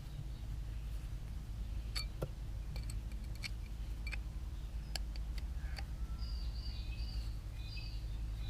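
Scattered light clicks and taps of hand-tool work on an engine block, a few seconds apart, over a steady low hum. A bird chirps a few times in the background near the end.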